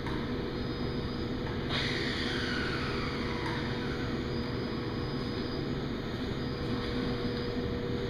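Steady mechanical hum of shop machinery with a constant tone. About two seconds in, a sudden sound starts and a whine falls in pitch over the next couple of seconds.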